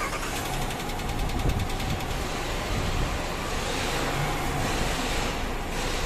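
2017 Dodge Durango engine being cranked by its newly replaced starter and then running. It starts, showing the failed starter was the cause of the no-crank, no-start.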